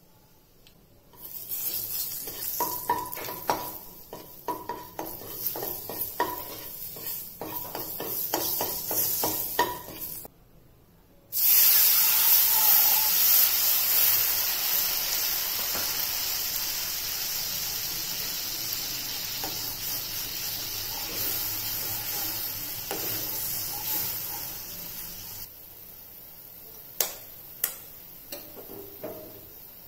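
Hot oil and spices sizzling and crackling in a nonstick kadai, with many sharp pops. After a short break a louder, steady hissing sizzle of a thin spiced liquid frying starts suddenly and slowly fades, dropping away well before the end, where a few sharp clicks are heard.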